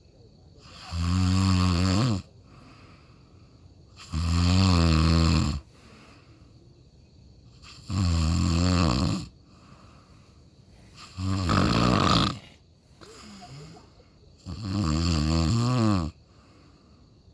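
Someone snoring: five long, buzzing snores, each just over a second, coming about every three and a half seconds, with quiet breathing between.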